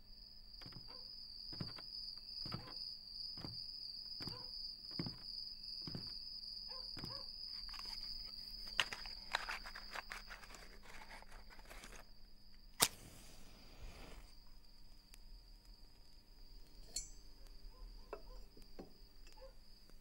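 A wooden match struck with a sharp scrape and flaring with a brief hiss about two-thirds of the way through, after some rustling and handling. Before it comes a slow series of soft thuds, about one a second. A steady high cricket-like trill carries on underneath throughout.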